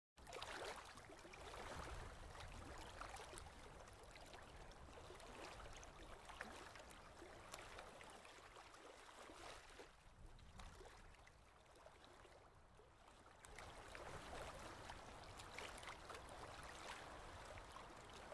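Faint water trickling and lapping, with scattered small clicks.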